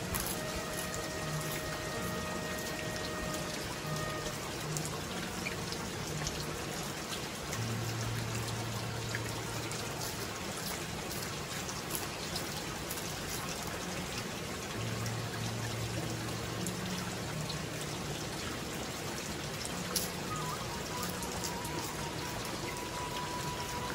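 Steady rain falling, an even hiss of many drops, with background music underneath.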